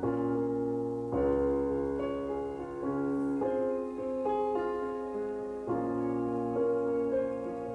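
Instrumental passage of a live acoustic rock song: piano chords over low bass notes, a new chord struck about every second, with no singing.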